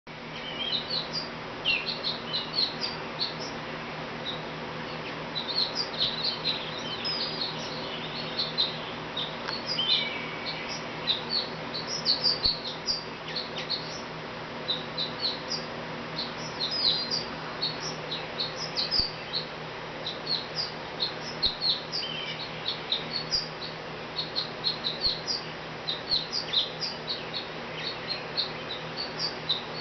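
Sparrow chirping over and over: a long run of short, high chirps coming in quick irregular clusters, with brief pauses between bouts.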